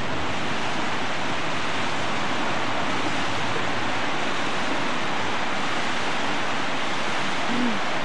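A river running high, rushing through whitewater rapids: a steady, even rush of water.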